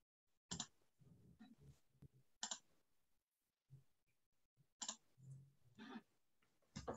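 Near silence, broken by a handful of faint short clicks.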